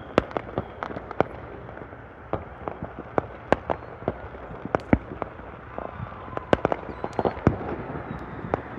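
Fireworks going off: an irregular string of sharp bangs and pops, sometimes several a second, with a denser cluster a little over six seconds in.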